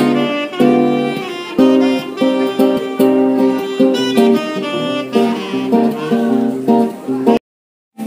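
Saxophone and acoustic guitar playing a tune together, the sax carrying the melody over plucked guitar notes. The music cuts off abruptly about seven seconds in.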